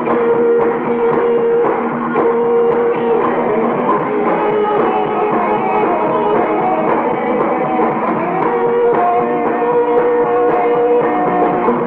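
Live rock and roll band playing an instrumental passage: electric guitar over a steady drum kit beat, with held notes, in a loud concert recording.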